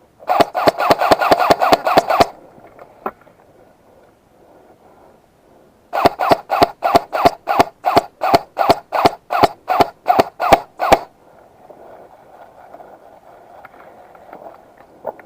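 Airsoft gun firing: first a rapid burst lasting about two seconds, then, after a pause, a string of about twenty shots at roughly four a second that stops about two-thirds of the way through.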